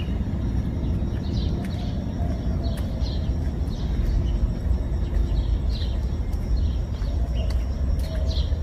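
Small birds chirping repeatedly, short falling chirps roughly once a second, over a steady low rumble.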